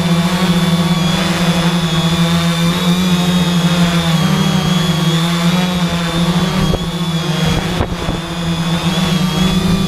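3DR IRIS quadcopter's four brushless motors and propellers humming steadily in flight, with a thin high whine over the hum; the hum dips briefly about eight seconds in.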